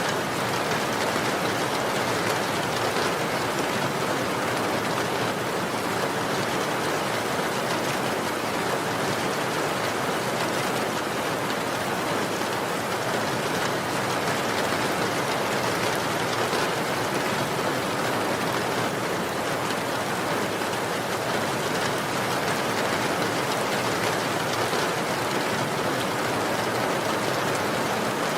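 Steady rain falling, an even hiss of many drops with no distinct single drips standing out.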